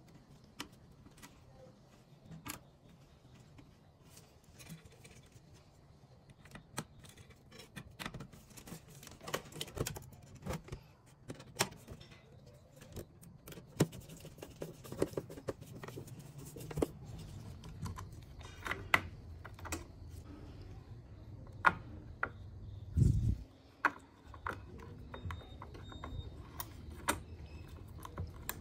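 Scattered clicks and light metal rattles of sheet-steel desktop case parts being handled and fitted, with a screwdriver working a screw. One heavier dull thump comes about three-quarters of the way through.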